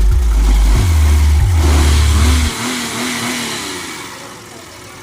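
Hyundai Eon engine revved under the bonnet: a loud low rumble that climbs in pitch about a second in and drops away sharply about halfway through as the throttle is released, then fades back toward idle.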